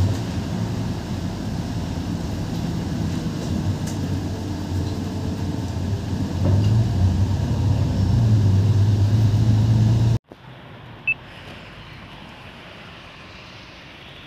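Bus engine running with road noise, heard from inside the vehicle; the drone gets louder about six seconds in. At about ten seconds it cuts off suddenly to a much quieter steady background with a single click.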